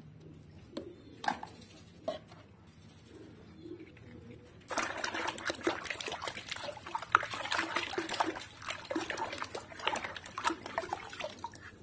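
A hand sloshing and churning soapy water in a basin: a few faint drips and small splashes at first, then about five seconds in a busy, continuous splashing with crackling foam.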